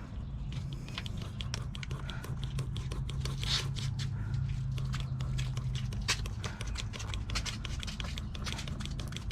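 Knife cutting and scraping at the excess rubber tire-plug strip sticking out of the tread, trimming it off: irregular scraping with many small clicks.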